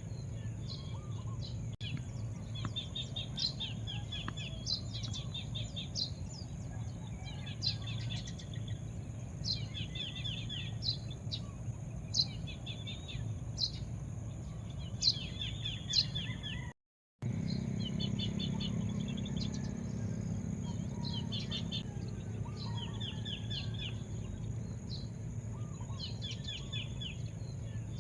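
Small birds chirping: repeated quick trills and sharp single high notes, several times a few seconds apart, over a steady low background rumble and a steady high whine. The sound cuts out completely for a moment about two-thirds of the way through.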